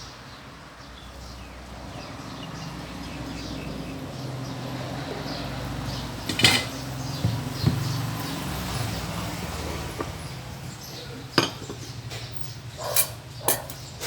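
Kitchenware clinking and knocking: a few sharp clinks of a spoon, glass or dishes, the loudest about halfway through and two more near the end, over a low steady hum.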